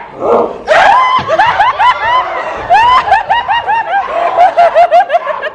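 A person laughing in a high-pitched cackle: quick repeated 'ha-ha-ha' notes, about five a second, starting about a second in and running on.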